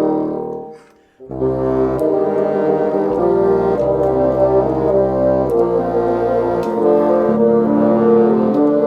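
Bassoon ensemble playing a carol in close harmony: a held chord dies away just after the start, a short break of about half a second follows, then the bassoons come back in with low, sustained chords that change every second or so.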